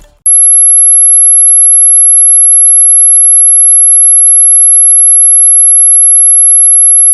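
A single steady, very high-pitched electronic tone, a pure whine, switches on abruptly and holds at full loudness without changing pitch.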